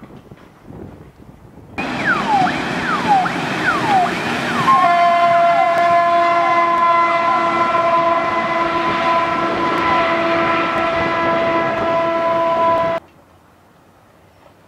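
Siren sounding a string of falling whoops, about two a second, then settling into one long steady tone that cuts off abruptly. Before it, wind noise on the microphone.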